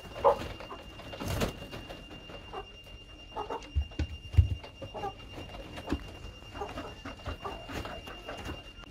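Chickens feeding from a hanging PVC-pipe feeder: irregular beak taps and knocks on the plastic pipe and feed, with short soft clucks now and then. A faint steady high-pitched whine runs underneath.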